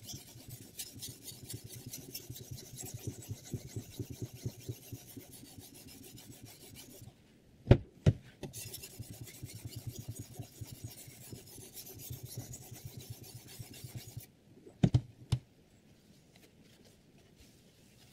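Sharpening stone on a guided knife sharpener's arm scraping back and forth along the edge of a VG10 steel chef knife in quick, even strokes. The strokes stop twice, each time followed by a pair of sharp knocks, about seven and fifteen seconds in.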